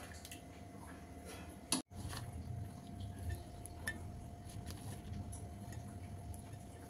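Faint clinks and small clicks of steel dishes being handled, over a steady low hum. About two seconds in, the sound drops out for a moment at a cut.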